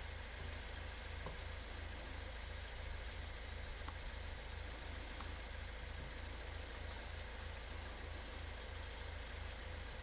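A steady low mechanical hum with an even throb about three times a second, like an idling engine or a running machine, with a few faint ticks.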